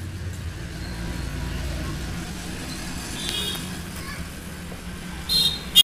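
Steady low background rumble, like distant road traffic, with a couple of short faint sounds and a sharp click just before the end.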